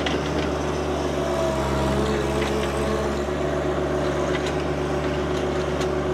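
John Deere 1025R compact tractor's three-cylinder diesel engine running steadily as the tractor pushes a large rock ahead of its loader bucket down a dirt slope. A few light knocks sound over the engine.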